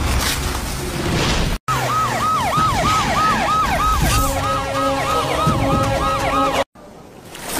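Film soundtrack: a siren-like tone that swoops down over and over, about three times a second, with held notes building under it partway through. It stops abruptly near the end and a quieter stretch follows.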